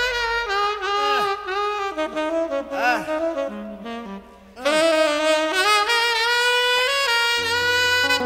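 Tenor saxophone solo in a gospel-jazz song: quick runs and bent notes, a brief dip about four seconds in, then a long sustained phrase. Bass comes in near the end.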